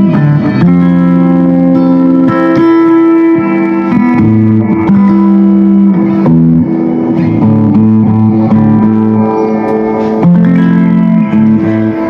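Guitar played through a Spark 2 guitar practice amplifier: held chords that change every second or two.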